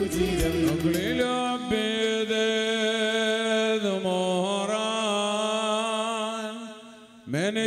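Music with a beat fades out about a second in. A man's voice then chants a liturgical chant in long held notes, dips briefly near the end, and comes back with a rising slide in pitch.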